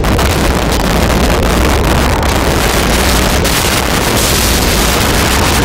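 Sound effect of a wall bursting and crumbling into rubble: a loud, steady rush of noise over a deep low rumble.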